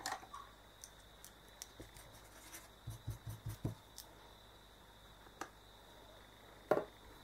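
Faint clicks and taps of makeup items being handled and set down, with a few soft low knocks about three seconds in and a sharper knock near the end.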